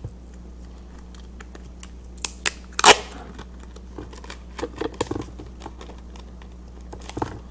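Tape being pressed onto a plastic-bag ball: plastic and tape crinkling in short scattered crackles. The loudest is one brief sharp crackle about three seconds in.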